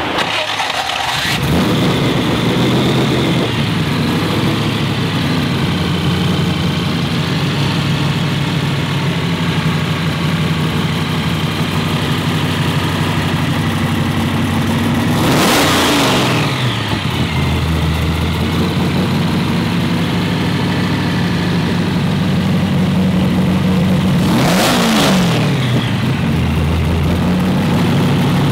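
Supercharged 383 cubic-inch small-block Chevy V8, a Weiand 250 blower with two 650 cfm carburettors, idling steadily through open headers. It is blipped twice, a quick rise and fall in revs about halfway through and again near the end.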